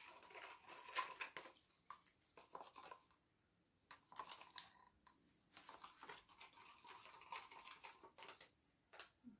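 Faint scraping and tapping of a wooden stir stick against a plastic cup, mixing gold glitter into epoxy resin, in several bursts with short pauses and a sharp click near the end.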